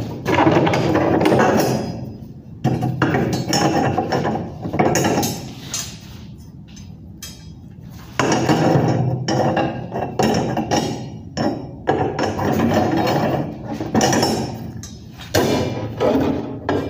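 Steel rebar being bent by hand into a stirrup ring with a bending tool: irregular metallic knocks and clinks of the bar against the tool, with a quieter stretch about six seconds in.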